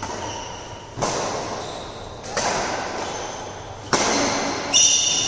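Badminton rackets striking a shuttlecock in a fast doubles rally: four sharp hits about a second apart, each echoing in a large hall.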